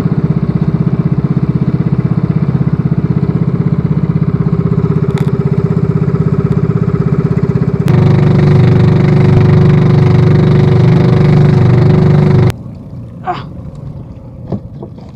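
Outrigger fishing boat's engine running with a fast, even pulsing beat, then revving louder about halfway through. It cuts off suddenly a few seconds before the end, leaving the sound much quieter.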